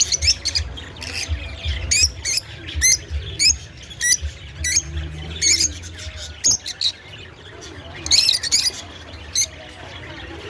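A group of lovebirds (Agapornis) calling: a run of short, shrill chirps and squawks, about two a second, over a low rumble.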